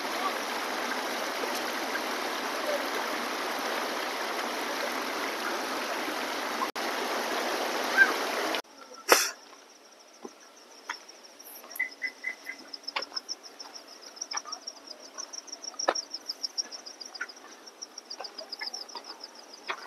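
Rushing water from a waterfall, a steady roar that cuts off abruptly about eight seconds in. After it, insects keep up a high, pulsing trill, with scattered light clicks.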